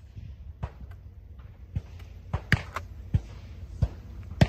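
Shotgun shots from elsewhere on the sporting clays course, a scattered run of about eight sharp pops at irregular spacing, the loudest just before the end, over a steady low rumble.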